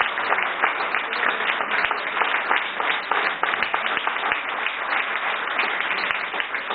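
Applause: many people clapping their hands at once, a dense, steady patter of claps.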